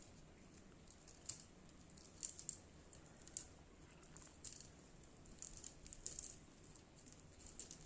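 Faint, irregular light clicks and ticks of thin bamboo sticks being handled and fitted together for a kite frame, over quiet room hiss.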